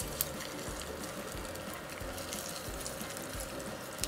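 Egg frying in hot fat in a frying pan: a steady sizzle, with a couple of light clicks as it is worked in the pan.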